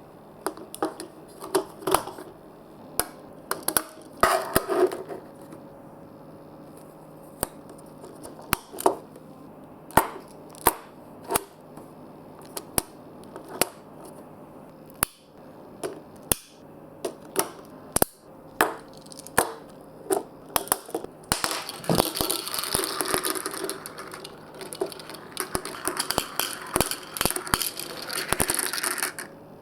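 Marbles clacking and rolling through a building-block marble run, with irregular sharp clicks as they hit the blocks. From about 21 seconds in, a rush of running water joins them until shortly before the end.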